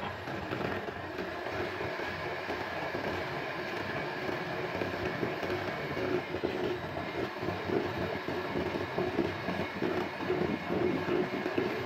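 Electric hand mixer running steadily, its two wire beaters whisking eggs and sugar in a plastic bowl, a constant motor hum and whine with the churning of the liquid, a little louder in the second half.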